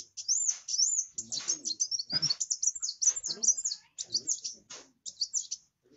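Kolibri wulung (a sunbird) singing 'gacor': a fast, nearly continuous run of high, thin chirps and quick rising and falling sweeps, broken only by short pauses.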